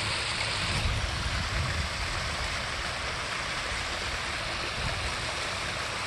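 Water cascading steadily down a stacked-stone garden waterfall and splashing into a pond.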